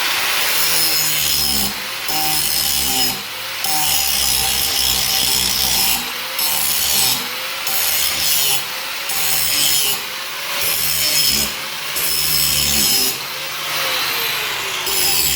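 Angle grinder running with an abrasive disc worked against metal. Its loud hiss dips briefly about every second or so as the disc is eased off and pressed back in.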